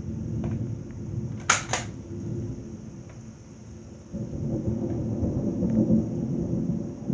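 Thunder rumbling low and long, easing off and then swelling again about four seconds in. Two sharp clicks come about a second and a half in.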